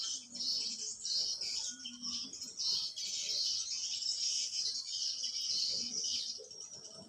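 Small birds chirping and twittering in a dense, continuous high-pitched chorus that thins out about six seconds in.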